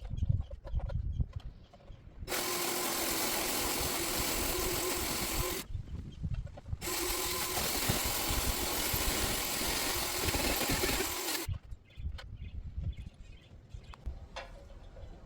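A motorized tool runs steadily in two bursts, about three and about five seconds long, each starting and cutting off abruptly, over low wind rumble on the microphone.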